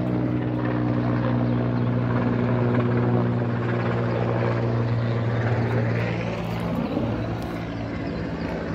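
Helicopter flying overhead: the steady drone of its rotor and engine, getting a little quieter after about six seconds.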